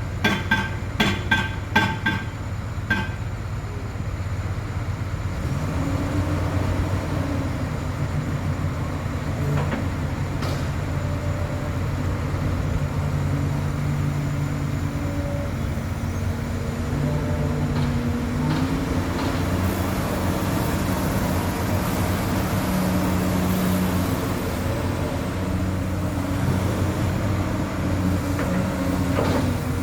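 Komatsu PC200 excavator's six-cylinder diesel engine running steadily, its pitch stepping up and down as the load on it changes. A fast, even pulsing tone stops about three seconds in.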